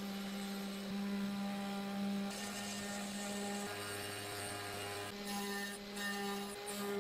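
500 W CNC spindle motor running with a steady whine while milling aluminium sheet at a shallow 0.1 mm depth of cut. The tone changes briefly about four to five seconds in.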